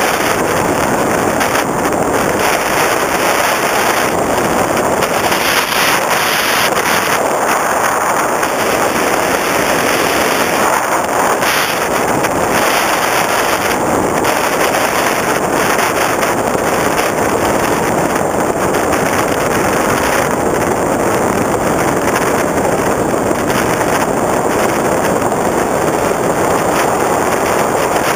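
Onboard sound of an electric FPV Raptor RC plane in flight: a loud, steady rush of wind over the camera mixed with the noise of its motor and propeller.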